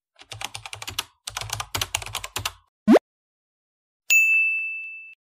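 Title-card sound effects: rapid computer-keyboard typing clicks for about two and a half seconds, a short rising swoop, then about a second later a single bell-like ding that rings and fades.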